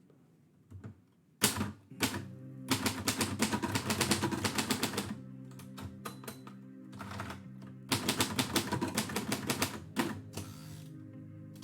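Typewriter keys striking: a couple of single keystrokes, then two fast runs of typing, the first from under 3 seconds in to about 5 seconds, the second from about 8 to 10 seconds in.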